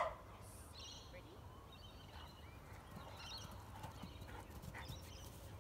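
Faint soft footfalls on grass, with scattered high chirps and one short louder call or yelp right at the start.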